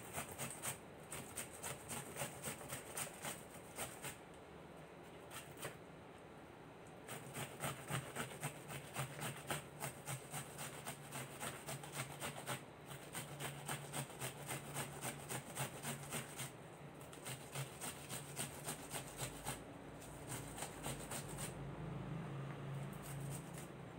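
Onion being grated on a handheld metal grater: quick rhythmic rasping strokes, stopping for a few short pauses.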